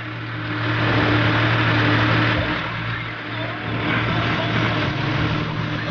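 New Holland tractor's diesel engine running steadily under load, with a broad rushing hiss over it. The sound grows louder about a second in.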